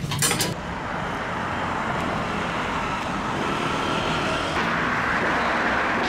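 Steady rushing background noise without any clear tone, stepping up slightly about four and a half seconds in.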